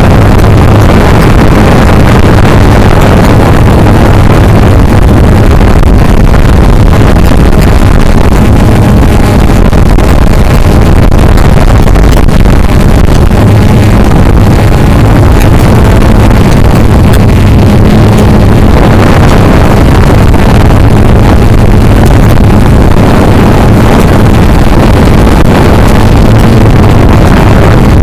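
CX-20 quadcopter's motors and propellers running steadily in flight, a loud, unbroken hum heard close from the camera carried on the drone, with wind rushing over its microphone.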